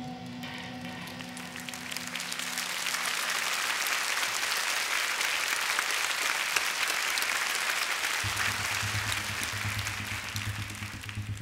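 Audience applauding, swelling as the last held notes of the band fade out. A low steady hum comes in about eight seconds in.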